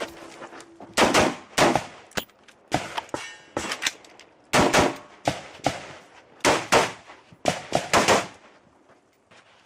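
A rapid string of gunshots, more than a dozen sharp cracks irregularly spaced, some coming in quick pairs a fraction of a second apart.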